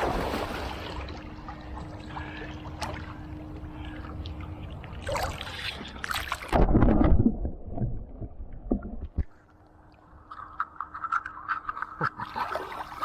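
Pool water splashing and sloshing as a Malinois puppy jumps in and paddles after a thrown toy, with the loudest splash about seven seconds in.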